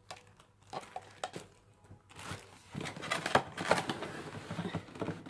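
Packaging being handled: crinkling and rustling with light clicks and knocks, sparse at first and busier from about two seconds in.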